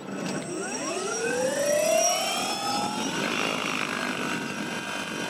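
Electric motor of the Electra One airplane spinning up its propeller: a whine that rises in pitch over about two to three seconds, then holds steady.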